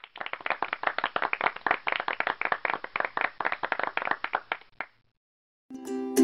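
Applause sound effect, a small group clapping for about five seconds, marking a correct answer; it cuts off suddenly. Ukulele music starts near the end.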